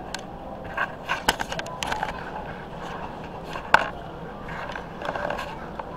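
Scattered clicks, knocks and rustles of things being handled, with one sharper click a little past halfway, over steady store background noise.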